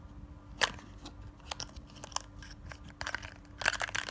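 Hands handling and opening a small box of microphone accessories: a sharp click about half a second in, then scattered clicks and rustles of packaging, busiest near the end.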